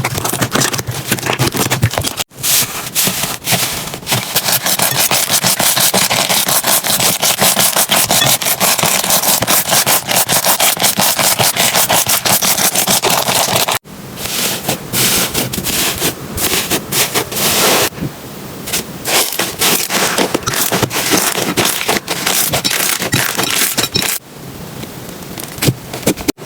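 Slime being squeezed and pressed by hand, with dense crackling and popping. The sound breaks off sharply about two seconds in and again near fourteen seconds as a new clip starts, and the texture changes a few times after that.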